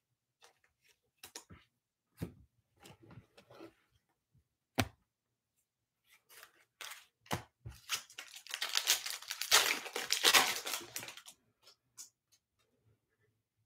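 Trading cards being handled with light scattered clicks and slides, then a foil trading-card pack crinkling as it is torn open, from about eight seconds in for roughly three seconds.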